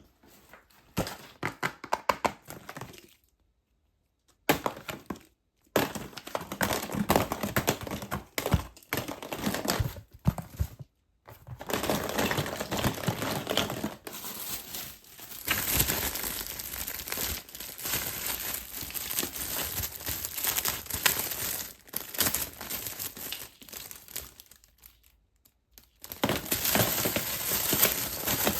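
Plastic and foil wrappers of surprise eggs and candy packs crinkling and tearing as they are unwrapped by hand. The sound comes in dense stretches broken by a few short, complete silences.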